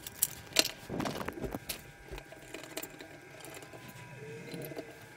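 Light clicks and knocks as a 3.5-inch hard drive is handled and set into a plastic NAS drive tray, most of them in the first second and a half, followed by faint handling sounds.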